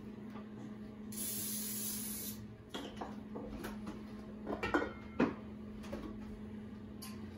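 Aerosol canola oil cooking spray hissing once, for about a second, into a baking dish. A few seconds later, sharp knocks as a stainless steel stand mixer bowl is lifted off the mixer.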